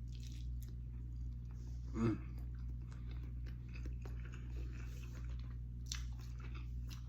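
A person chewing a big bite of fried chicken close to the microphone, with soft wet mouth sounds and small clicks. A short hummed "mm" about two seconds in, over a steady low hum.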